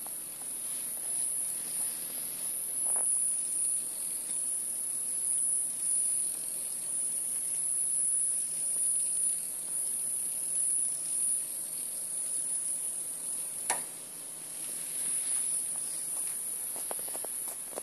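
A small red toy ladybug running across a tiled floor, its tiny motor giving a steady high-pitched whine. A single sharp click comes about three-quarters of the way through, with a few fainter clicks near the end.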